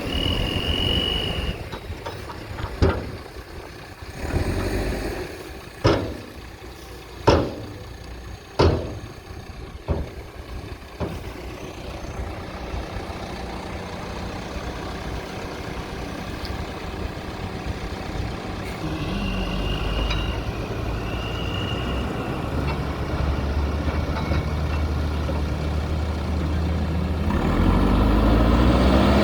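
A JCB backhoe loader's diesel engine runs steadily while working mud, with about six sharp metallic knocks in the first eleven seconds. A high beeping tone sounds at the start and again around two-thirds of the way in, and the engine grows louder near the end.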